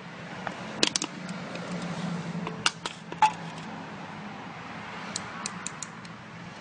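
Sharp clicks and light taps from a crushed aluminium drink can being handled and set down, a few spread through the first half and a quick run of small ticks later on, over a steady low hum.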